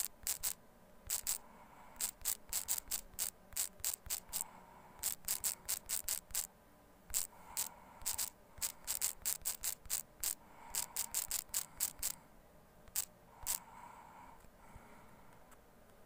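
Typing on a smartphone's on-screen keyboard: irregular runs of short, sharp key clicks, several a second, that stop a few seconds before the end.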